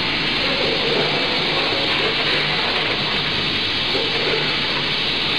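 Steady rattle and hiss of a 14-head multihead weigher running, light puffed snacks sliding and rattling across its vibrating stainless feed pans, with a low hum underneath.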